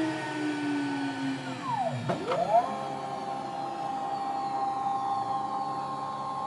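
High-speed air-cooled spindle motor (24,000 rpm) of a two-head CNC lock-routing machine whining as it winds down in pitch. After a click about two seconds in, it spins back up to a steady high whine.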